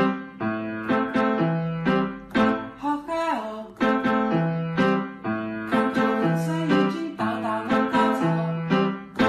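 Background music: a bright keyboard melody in evenly struck notes, about two a second, over a repeating bass line.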